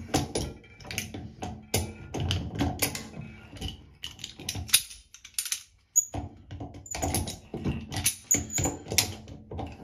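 Vice grips clicking and clanking against the shower's thermostatic valve cartridge as it is worked loose and unscrewed, with short metallic rings; the clatter stops for about a second midway, then starts again.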